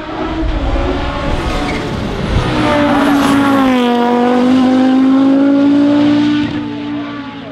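Five-cylinder turbocharged Audi quattro hill-climb car passing at full throttle. The engine note builds, is loudest in the middle with one drop in pitch, then fades near the end.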